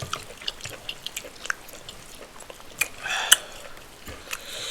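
Close-miked person chewing a mouthful of white rice and spinach stew with chicken: a run of short wet mouth clicks and smacks, with a brief louder noisy burst and a sharp click a little after three seconds in.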